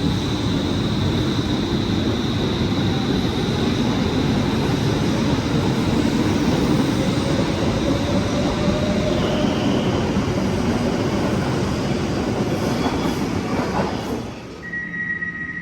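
SL C30 light-rail tram (Bombardier Flexity Swift) pulling away: steady rail running noise with a faint rising traction-motor whine, and a high tone that steps down in pitch about two-thirds of the way in. The noise drops off sharply near the end, where a different steady tone starts.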